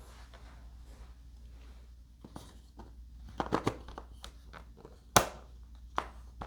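Scattered clicks and light knocks of parts being handled during model assembly, a quick cluster about halfway through and one sharp click just after five seconds, over a low steady hum.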